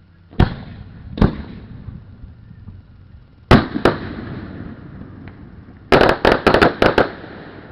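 Fireworks bursting overhead: two single bangs, then a quick pair, then a rapid volley of six or so bangs near the end, each trailing off in echo.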